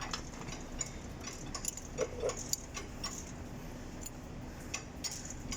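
Irregular light metallic clicks and ticks from hand work on a diesel engine's fuel system while air and diesel are bled out, with two short blips about two seconds in.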